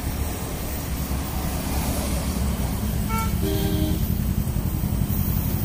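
Steady road-traffic rumble with a vehicle horn tooting briefly a little after three seconds in, over the even hiss of a gas welding torch working on an aluminium engine block.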